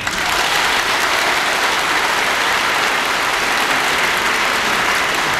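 Audience applauding: dense, even clapping that starts suddenly and holds steady.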